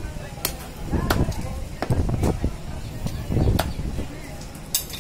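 Heavy butcher's chopper striking goat meat and bone on a wooden log chopping block: a series of sharp chops, roughly one a second, with duller thuds into the block.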